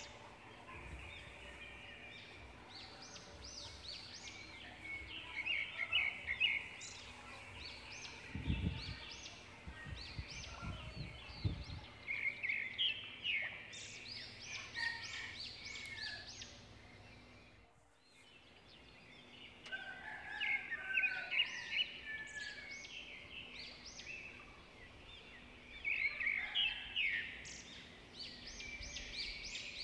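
Birds calling in bursts of rapid high chirps every few seconds, with a couple of low thuds about a third of the way through.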